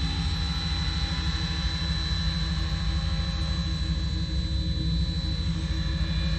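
Synergy E5 electric RC helicopter in flight: a steady high-pitched motor and rotor whine over a low, unsteady rumble.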